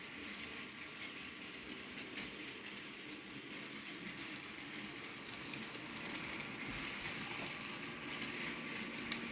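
HO scale model trains running on the track, a Burlington Northern GP20 locomotive with freight cars and a passenger train. There is a steady rolling whir with faint clicks from wheels over the rails, a little louder about six seconds in as the passenger cars pass close.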